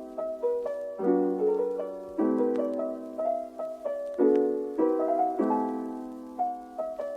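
Background music: soft piano chords struck about once a second, each fading before the next.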